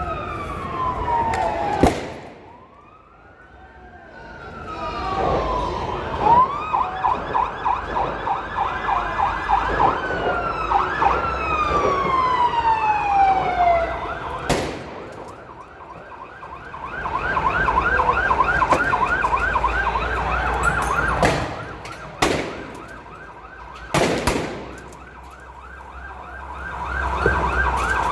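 Electronic emergency-vehicle siren that alternates between slow falling wails and long stretches of fast warbling yelp, its loudness swelling and fading. Several sharp bangs from fireworks break through it.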